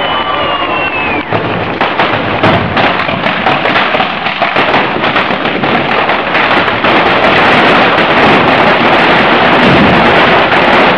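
Fireworks and firecrackers set into a burning foguera monument going off. A falling whistle fades in the first second, then sharp bangs come thicker and faster until they merge into a dense, continuous crackle near the end.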